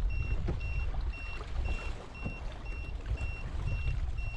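Shallow water lapping and sloshing around a kayak hull, with a few soft knocks. Over it, a short high electronic beep repeats steadily about two and a half times a second.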